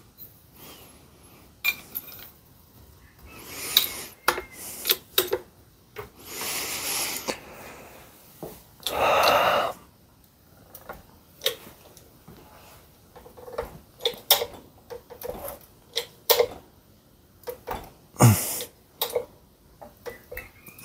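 Hydraulic bottle jack being pumped by its long handle while it presses a harmonic balancer's rubber ring under heavy pressure: irregular metallic clicks and clanks, with a few longer noisy strokes, the loudest lasting about a second around nine seconds in.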